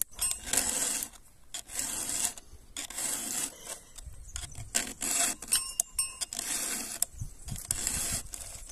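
Round chainsaw file rasping across the cutter teeth of a chainsaw chain, one scraping push stroke about every second with short pauses between. This is the chain being sharpened tooth by tooth.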